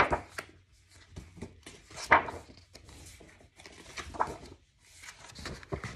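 Rustling and light knocks from a picture book being handled, three short noises about two seconds apart.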